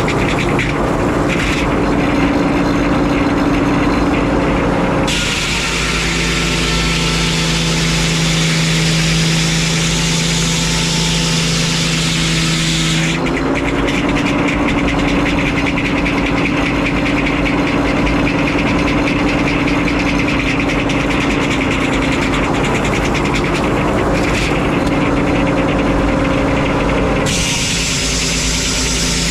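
Frick 01-C circular sawmill running with a steady engine drone. A louder hiss of the blade cutting through a pine log comes in at about five seconds for some eight seconds, and again near the end.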